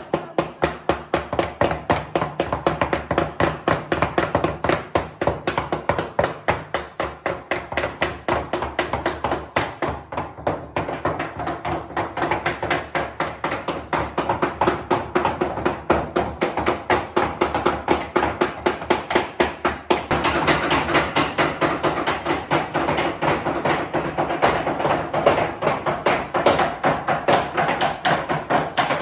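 Food being struck over and over on a hard kitchen surface in a steady run of quick knocks, about three a second, without a break.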